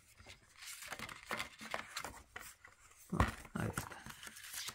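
Paper leaflet and plastic DVD case being handled: soft rustling and small irregular clicks, with one louder knock about three seconds in.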